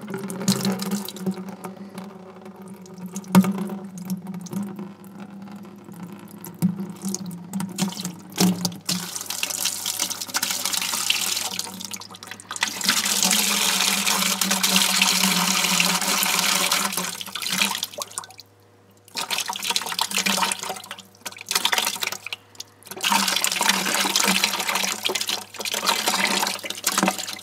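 Clear water pouring from the Oliver 770's loosened oil-pan drain plug and splashing into a drain pan. It starts as a lighter trickle, becomes a full stream, and breaks off briefly a couple of times. Water rather than oil coming out of the crankcase is the sign of water in the engine.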